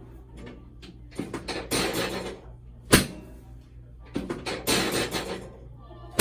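Chiropractic adjustment thrusts: two sharp clacks about three seconds apart, each after a rushing, breath-like noise lasting about a second.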